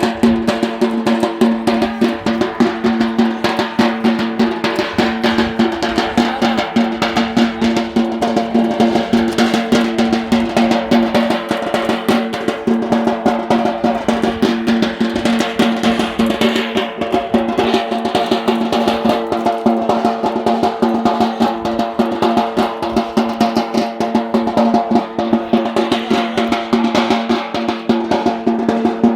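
Fast, dense drumming for the Yemeni bara' dance, with a steady droning tone held under the drum strokes.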